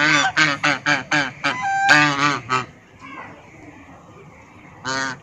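Domestic geese honking: a quick run of about ten loud honks over the first two and a half seconds, then one more honk near the end.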